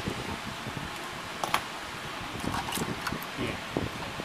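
Light clicks and taps of an inkjet printer's main circuit board and ribbon cable being worked loose from its metal frame by hand. One sharper click comes about a third of the way in and several smaller ones in the second half, over a steady background hiss.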